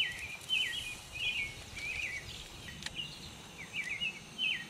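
Birds chirping: a run of short, quick chirps repeated every half second or so, with a single sharp click a little under three seconds in.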